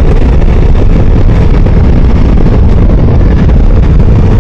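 Ducati Multistrada V4S's V4 engine running at a steady cruise, almost buried under loud, steady wind rush on the microphone.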